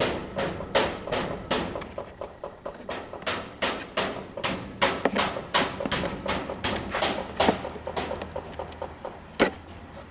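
Sharp clicking of the tail light housing's screws being turned tight with a tool, about three clicks a second at first, then slower and more uneven. There is one louder click near the end.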